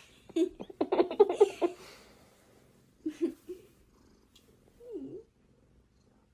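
Domestic cat vocalising: a quick run of short trilling, purr-like sounds in the first two seconds, a brief chirp about three seconds in, and a short low meow that dips and rises about five seconds in.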